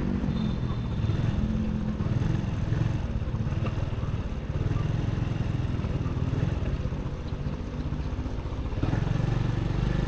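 Motorbike engine running steadily while riding, with a low drone under road noise; the low drone grows stronger near the end.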